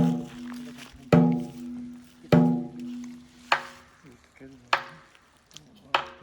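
A ringing, pitched knock struck six times at an even pace, about once every 1.2 seconds, each one dying away before the next; the last three are weaker.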